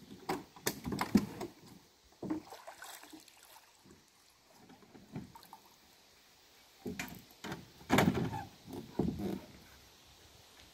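Irregular knocks and bumps of a person, gear and paddle against a Kevlar Wenonah Prism canoe's hull as a paddler climbs aboard from shallow water and pushes off. They come in a cluster in the first second or so and again from about seven to nine and a half seconds in.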